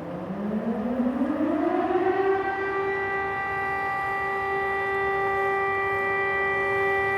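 Civil defence warning siren winding up: its tone rises in pitch over the first couple of seconds, then holds a steady, level wail. It is sounding for a training alert.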